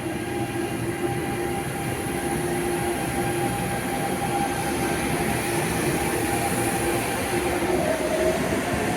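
MTR Airport Express electric train running, a steady rail rumble with a constant motor whine that drops in pitch near the end.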